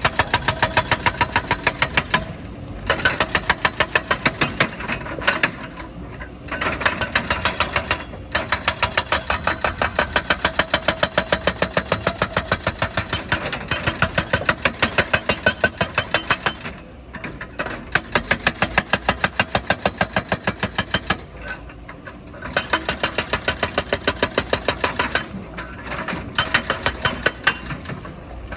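Rock-breaking machinery hammering: a rapid, even run of heavy blows, several a second, over a running engine. It stops briefly every few seconds and starts again.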